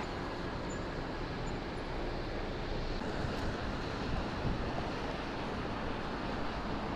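Steady rushing noise of road traffic and wind, with no distinct events.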